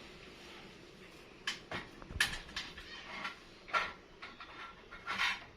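Small objects being handled: about seven short knocks and rustles at irregular intervals, the loudest a little over two seconds in.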